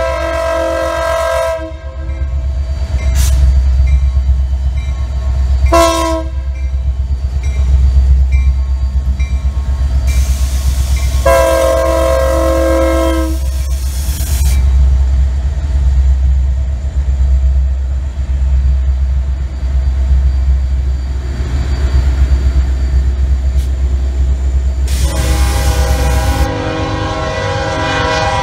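Diesel locomotive's multi-note air horn sounding several blasts: a long one at the start, a short toot about six seconds in, a long blast around twelve seconds, and another beginning near the end. A heavy low rumble of the train runs beneath.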